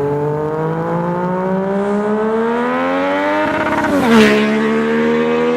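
Car with a stainless-steel sports exhaust accelerating, its exhaust note rising steadily in pitch. About four seconds in comes a short, loud burst as the note drops to a lower pitch, and the car then pulls on at a steady note.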